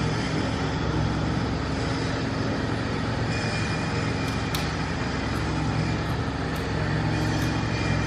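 Steady low hum and hiss of background noise, with a couple of faint clicks in the middle.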